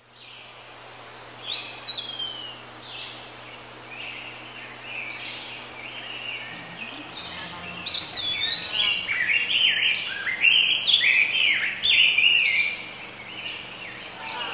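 Birds singing: many short overlapping chirps and whistles that grow busier and louder about eight seconds in, over a faint steady low hum.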